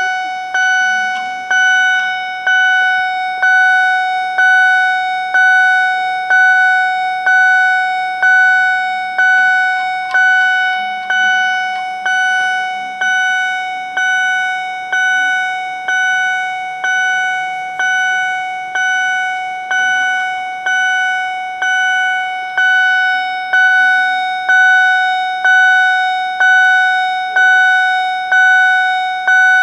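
Level-crossing acoustic warning signal (Scheidt & Bachmann GZT-30) sounding its repeated bell-like stroke, a little over once a second. Each clear tone rings out and fades before the next. It is the alarm of a closed crossing while its barriers are down.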